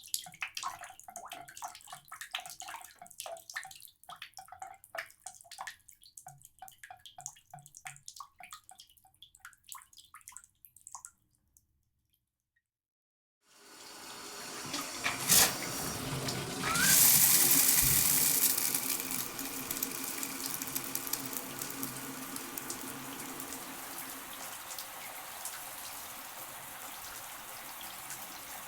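Shower water dripping in irregular drops, then a pause, then the shower is turned on: the spray swells up, is loudest shortly after, and settles into a steady running hiss. There is a single sharp knock soon after the water starts.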